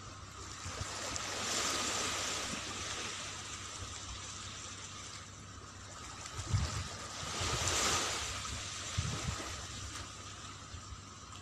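Small waves washing onto a sandy beach, the surf swelling twice about six seconds apart, with a few short low thumps between.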